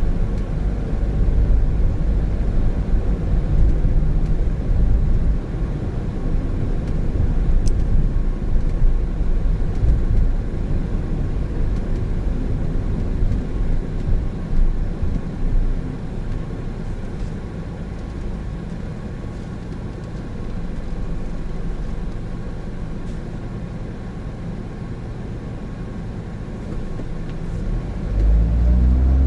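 Engine and road noise from a 2017 Honda N-BOX Custom with a 660 cc turbo engine, driving in town. It is steady for most of the stretch, eases down for a while in the second half, then near the end the engine pitch rises and gets louder as the car accelerates.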